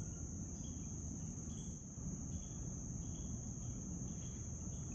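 Insects trilling outdoors: one steady high-pitched trill, with fainter chirps lower down about twice a second, over a low background rumble.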